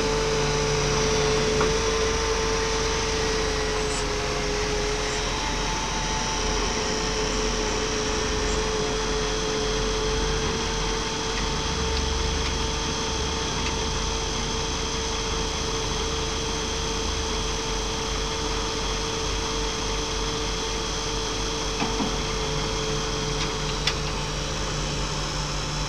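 Hydraulic piling rig's engine and hydraulic power pack running steadily with a constant droning tone, the hammer not striking. A couple of light clicks come near the end.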